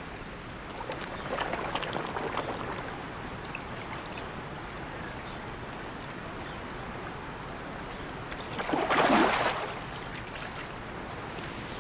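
Steady trickle of water at a garden pond, with a louder rush of water lasting about a second, around nine seconds in.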